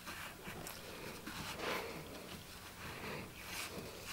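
Shop rag being pushed and rubbed through the bore of a drum-brake wheel cylinder held in a vise: faint, soft cloth-on-metal rubbing in a few short strokes, wiping out the freshly honed bore.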